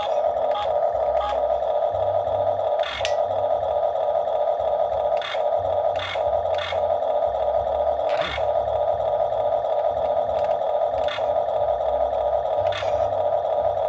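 Excavator engine running steadily in a continuous drone, with about ten short sharp clicks at irregular intervals.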